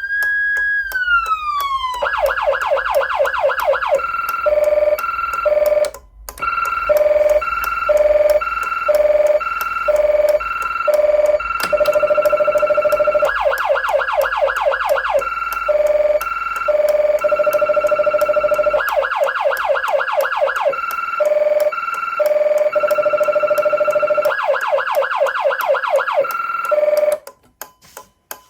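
Federal Signal Unitrol Touchmaster siren amplifier cycling automatically through its tones: a wail falling away, then fast yelp sweeps, about four a second, alternating with a two-tone hi-lo. Under it, the old unit's indicator relay clicks steadily; the siren stops near the end, leaving only the relay ticking.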